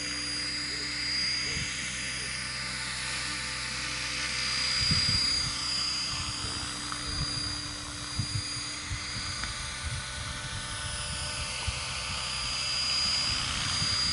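Mikado LOGO 500 3D electric RC helicopter flying, with a steady high motor and gear whine over the rotor sound. Its pitch sweeps slowly up and down as it manoeuvres.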